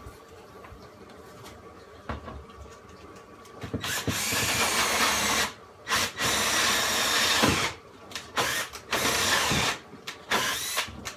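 Power drill boring holes down through the floor for aquarium plumbing. It starts about four seconds in and runs in several bursts, stopping and starting again, with a faint whine under the noise.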